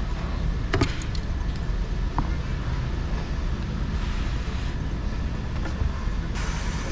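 Steady low rumble and hum of background machinery noise, with a few light clicks about a second in and again near two seconds, typical of small parts being handled.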